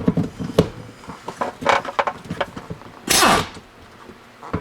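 Sharp metallic clicks and knocks as a worn Torx bit is set into a stuck truck door bolt and tried again. About three seconds in comes one short, loud burst whose pitch falls.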